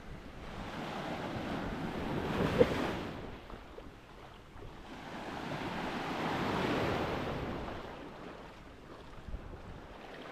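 Small sea waves breaking and washing on a sandy shore, the surf swelling and fading in slow surges with two clear peaks. Some wind buffets the microphone.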